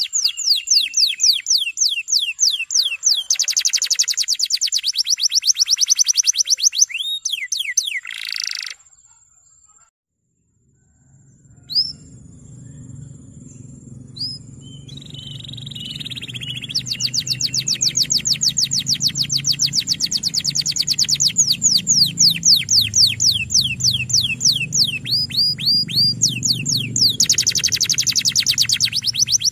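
Male canary singing long, rapid trills of repeated high notes, the rolling song used to train young canaries. The song breaks off into near silence about nine seconds in. It resumes a few seconds later over a low background hum.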